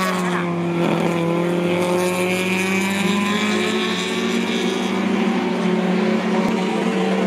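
Engines of two vintage racing cars, a Datsun roadster with a BMW 2002 close behind, running at steady high revs as they come through a corner, a constant engine drone with little change in pitch.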